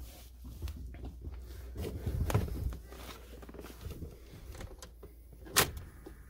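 Soft handling and rustling noises, with one sharp click about five and a half seconds in.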